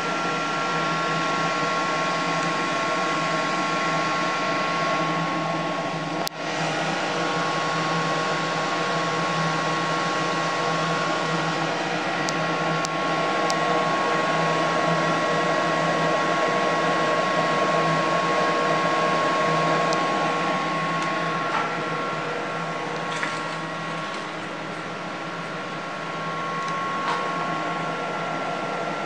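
Steady whir of the CNC router's machinery and cabinet cooling fans, with a steady high electrical whine over it.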